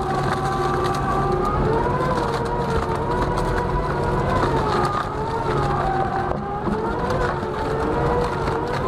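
Mobile wood shredder running with a log in its hopper: the machine's drive whines with a pitch that dips and recovers every second or two as the toothed rotor bites into the wood, over a steady hum, with scattered cracks and splintering of the log.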